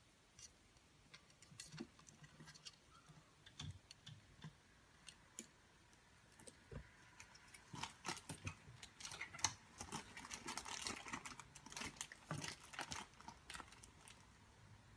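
Ferret's claws scrabbling and clicking on a wooden drawer cabinet: faint scattered scratches, much busier from about eight seconds in as it squeezes into the cabinet.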